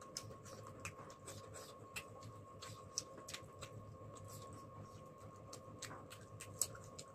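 Faint, irregular clicks and smacks of someone chewing and eating noodles and chicken, over a steady faint hum.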